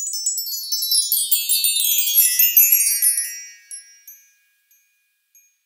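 Twinkling chime sound effect: a shimmering cascade of high bell-like tones that steps down in pitch over about three seconds and fades out, with a few faint last tinkles around four seconds in.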